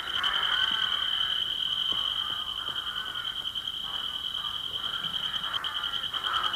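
Animated-film soundtrack effect: a high, rapidly pulsing trill held without a break, over a lower wavering warble that comes and goes.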